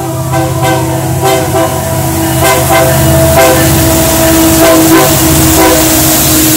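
Union Pacific diesel freight locomotives passing close at the head of a long double-stack intermodal train, getting louder as they come alongside. The air horn sounds a steady chord through most of it, over diesel engine noise and a run of wheel knocks on the rail.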